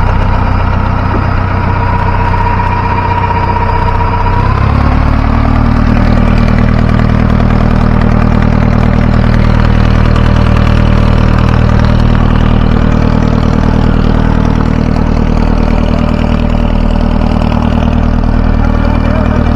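Fishing boat's engine running steadily under way; about four and a half seconds in its pitch steps up as it speeds up, then holds at the higher speed.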